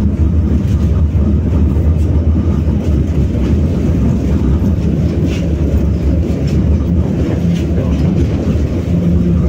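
BKM-60102 tram running along the track: a steady low rumble, with a few faint clicks from the wheels and rails.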